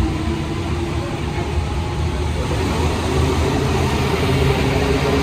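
Interior running noise of a rubber-tyred Alstom NS-93 metro train moving between stations: a steady rumble with a humming tone from the drive.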